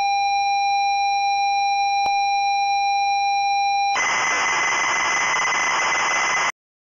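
Synthesized loading-screen sound effect: a steady electronic beep tone with a click about two seconds in. Near four seconds it switches to a loud static hiss with a higher steady tone, which cuts off suddenly at about six and a half seconds.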